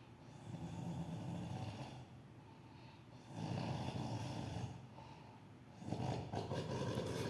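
A sleeping person snoring like a pig: three low snores about two and a half seconds apart, with quieter breathing between them.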